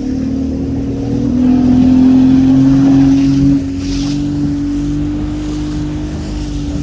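Motorboat engine running at speed: a steady drone that grows louder about a second and a half in and drops back a little about three and a half seconds in.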